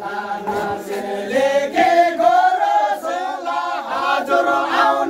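A group of men singing together in chant-like unison, holding long notes that slide up and down in pitch.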